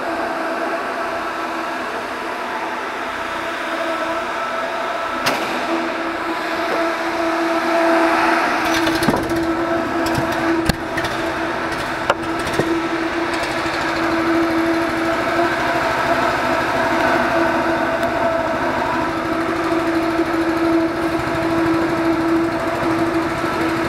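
Steady drone of go-kart engines running, a deeper rumble joining about eight seconds in, with a few sharp knocks from handling the kart.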